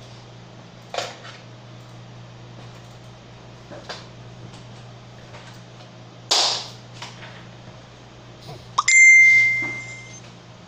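A few light clicks and a sharper knock, then a bell-like ding that rings for just over a second near the end, over a steady low hum.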